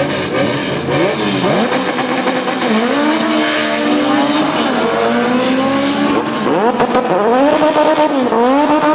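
Honda Civic drag car's high-revving four-cylinder engine accelerating hard through the gears, the revs climbing and dropping back at each upshift, several times in a row.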